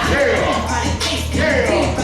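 Hip hop music played loud over a PA, with a vocal line over a steady bass beat.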